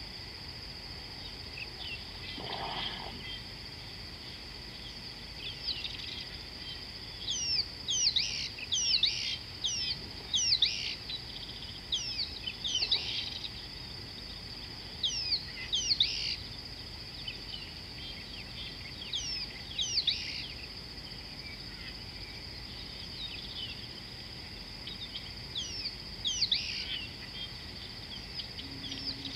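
Wild birds giving short, sharp whistled calls that sweep quickly in pitch, in repeated clusters through the middle and again near the end, over a steady high-pitched insect drone.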